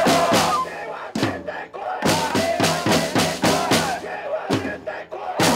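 Protest drums beaten about four strokes a second, in short runs broken by brief pauses, under shouted chanting through megaphones.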